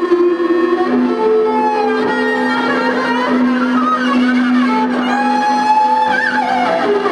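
Violin bowed and run through effects pedals, playing a noise-music drone: several long held notes overlap and change pitch every second or two, with warbling, wavering higher tones weaving above them.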